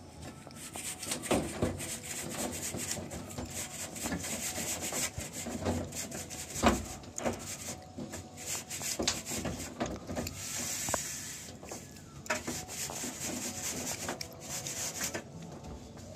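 A long straight edge scraping back and forth across freshly applied cement plaster on a ceiling to level it: a gritty rubbing in repeated strokes, with a sharper knock about six and a half seconds in.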